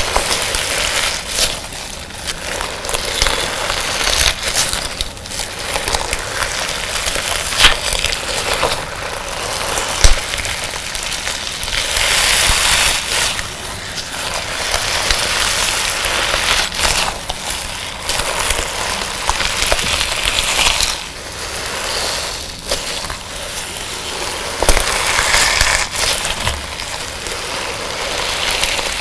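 Sand-filled slime being squeezed and squashed by hand, a continuous gritty crackling with many small clicks and a few sharper pops, loudest about eight and ten seconds in.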